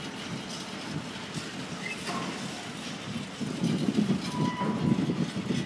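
Container flat wagons of an intermodal freight train rolling past, a steady rumble of steel wheels on the rails that grows louder about three and a half seconds in. A short high wheel squeal is heard about four and a half seconds in.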